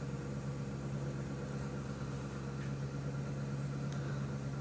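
A steady low mechanical hum, with a couple of faint ticks partway through.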